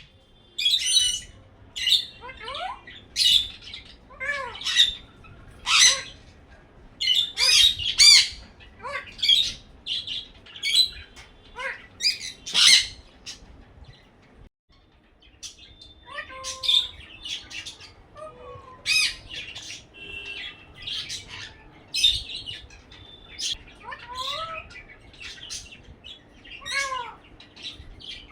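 Pet parrot squawking and chirping in a long series of short, high calls, some of them quick rising whistles. There is a brief pause about halfway through.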